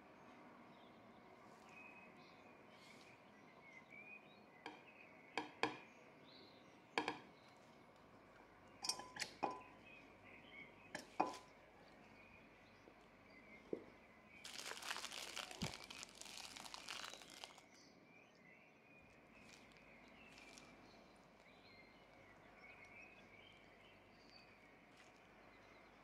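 Kitchen handling sounds: a handful of sharp knocks and clinks of utensils and dishes against ceramic plates, then about three seconds of plastic crinkling as a piping bag is handled. Faint bird chirps sound in the background.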